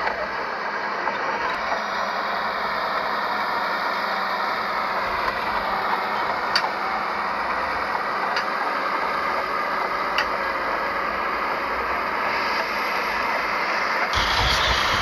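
Heavy earthmoving machinery's diesel engine running steadily, with a few light clicks. Near the end it grows louder, with a deeper rumble.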